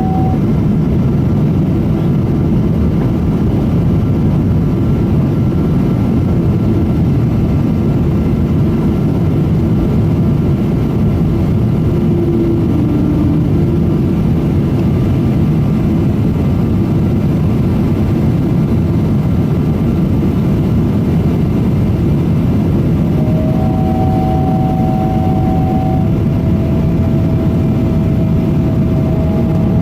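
Boeing 777-200 cabin noise on approach: a steady, loud rumble of the engines and airflow heard from inside the passenger cabin, with faint steady whines above it. Late on, a new steady whine joins in.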